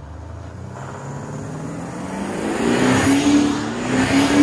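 Audi A6 allroad 3.0 BiTDI twin-turbo V6 diesel at full throttle in Dynamic mode, its engine note boosted by a Kufatec Sound Booster in the exhaust. It rises in pitch and grows louder as the car comes closer.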